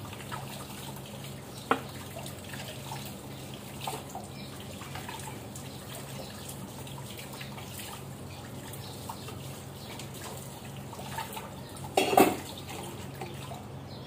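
Kitchen tap running while steel utensils are rinsed under it, with light clinks of metal over a low steady hum; a louder clatter of steel dishes about twelve seconds in.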